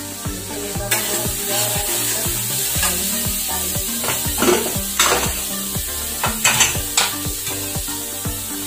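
Masala paste sizzling in a steel kadai over a gas flame as it is stirred with a metal spatula, the sizzle starting about a second in. A few sharp metal clinks come in the middle, over background music with a steady beat.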